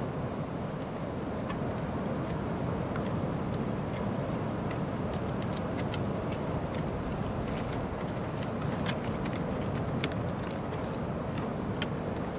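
Dogs' claws clicking and tapping on the planks of a wooden boardwalk as they walk past, the clicks thickest about two thirds of the way through, over a steady low rushing noise.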